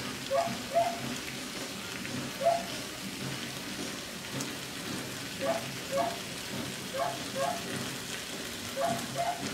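Chicken adobo frying in a wok over a lit burner, a steady sizzling hiss. Short rising chirps, mostly in pairs, come over it every second or two.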